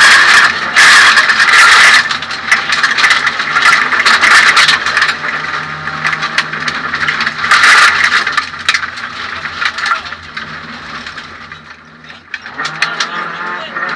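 Suzuki Swift 1600 N2 rally car's 1.6-litre four-cylinder engine running hard, heard from inside the stripped cabin. Rattles and knocks clatter throughout, and the engine grows quieter in the last few seconds as the car eases off.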